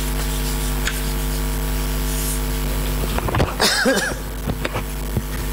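Steady electrical mains hum in a classroom, with a light chalk tap on the blackboard about a second in. A short vocal sound from the lecturer breaks in at about three and a half seconds.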